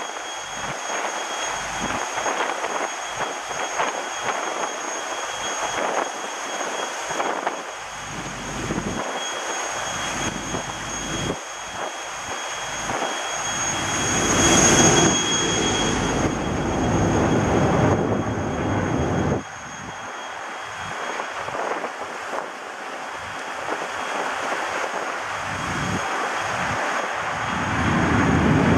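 Rushing water and wind along the hull of a ship under way at speed, with gusts buffeting the microphone. A faint steady high whine runs underneath.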